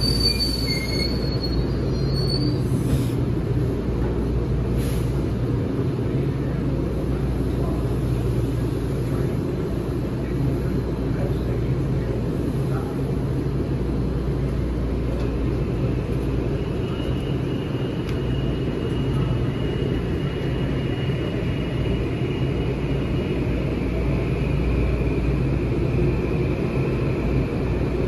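Metro-North electric commuter train, M8 cars, standing at a platform: a steady low electrical and ventilation hum, with a high squeal fading out in the first second as the train comes to rest. A faint high whine joins about halfway through.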